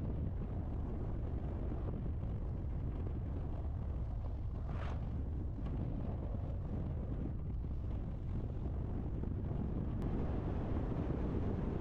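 Car driving on a rough, broken road: a steady low rumble of engine and tyres with wind buffeting the microphone, and a brief hiss about five seconds in.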